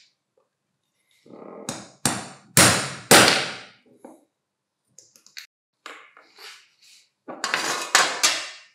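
Three sharp metallic knocks about two to three seconds in, each ringing briefly, as a thin punch is worked against the spindle lock button in the aluminium gear housing of a Hitachi G18DSL cordless angle grinder. Lighter clicks follow, and near the end the housing clatters against a metal tray.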